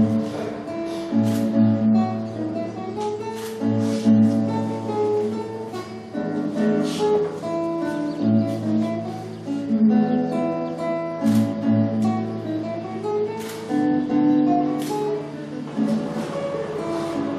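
Background music of strummed acoustic guitar, chords struck every second or so with plucked notes between.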